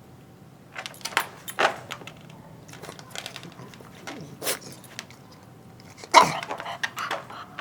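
English bulldog puppy making short protesting yips and barks, a handful of sharp outbursts with the loudest about six seconds in, dropping in pitch as it goes.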